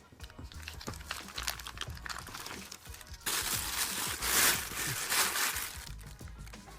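Crinkling and rustling of a sheet of paper or plastic being handled and crumpled, with scattered small clicks at first and a loud burst of crinkling about halfway through that lasts a few seconds.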